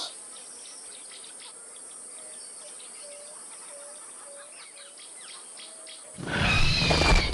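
Video game-style habitat soundscape from the Jurassic World Facts app: a low steady hiss with faint bird-like chirps and insect noise. About six seconds in, a loud, shrill, horse-like animal cry cuts in, the app's velociraptor call.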